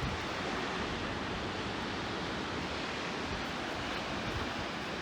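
Steady rushing of a waterfall, Undine Falls.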